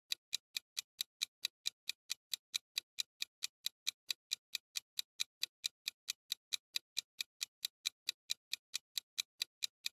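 Countdown-timer clock-tick sound effect: quick, even ticks, about four or five a second, counting down the answer time.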